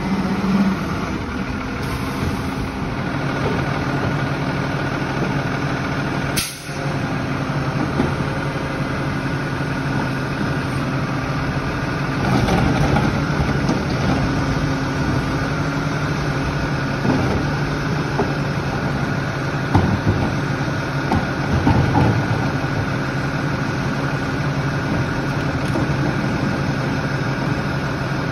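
Split-body Lodal garbage truck's engine running steadily at idle, briefly louder a few times.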